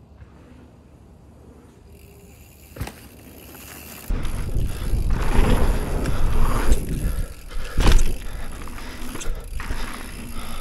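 Long-travel mountain bike riding over a dirt track. It is quiet at first; from about four seconds in comes a loud rush of tyre and rolling noise, with one sharp knock near eight seconds.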